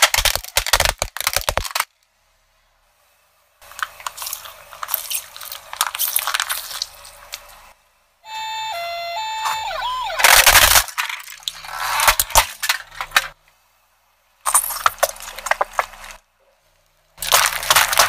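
A series of separate crushes under a car tyre: plastic toys cracking and breaking with sharp crunches, with silent gaps between. Just before the middle a battery toy fire truck plays a short electronic beeping tune before it is crushed, and near the end aluminium soda cans burst and crumple as the tyre rolls over them.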